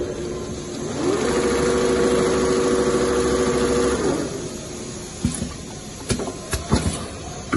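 Two-head CNC pattern sewing machine stitching leather: a steady mechanical hum rises in pitch about a second in, holds for about three seconds, then falls away. A few sharp clicks follow near the end.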